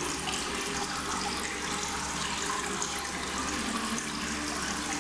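Water running steadily in a partly filled aquarium, a continuous hiss: the fresh-water rinse of newly mortared ceramic rockwork, circulated by a small pump and hose.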